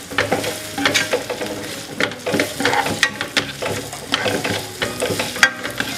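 Sliced onions and green chillies sizzling in hot oil in a ceramic-coated pan while a spoon stirs them, scraping and knocking against the pan again and again, with one sharper knock about five and a half seconds in.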